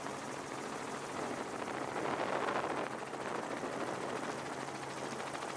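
An engine running steadily with a fast, even pulsing. It swells louder about two seconds in, then settles back.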